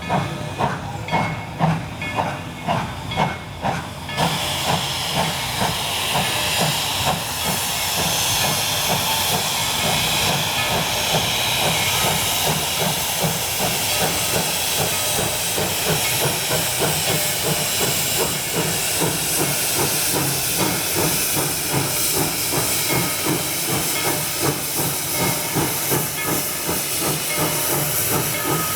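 Narrow-gauge steam locomotive working, its exhaust chuffing in even beats about two or three a second at first. About four seconds in, a steady loud hiss of steam takes over, with the beats quickening and running together beneath it.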